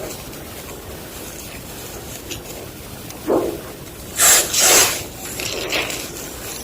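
Fresh gym chalk crunching and crumbling: a soft crunch about three seconds in, two loud gritty crunches just after, then softer crumbling.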